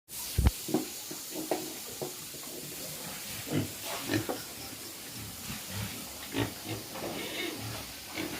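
Pigs grunting: a dozen or so short, irregular grunts, the loudest about half a second in, over a steady hiss.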